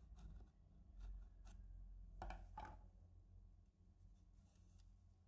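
Faint scraping and prying of a flat steel tool against the seam of a brass oil-lamp font, in a few short scratchy strokes, the two clearest about two seconds in.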